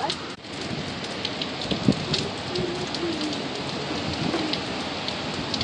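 Hurricane rain and wind: a dense, steady rush of heavy rain with many small sharp drop ticks, and faint wavering tones now and then.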